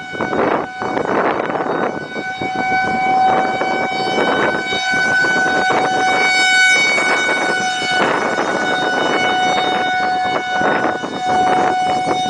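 A tornado-warning siren sounds one steady pitch that swells and fades over a few seconds at a time. It is heard over heavy rushing wind and rain noise.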